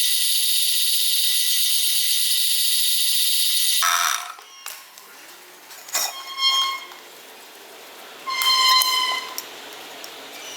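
A power tool runs steadily on metal with a high, hissing whine, then stops about four seconds in. After that, metal pieces clink and ring a few times, the loudest cluster near the end.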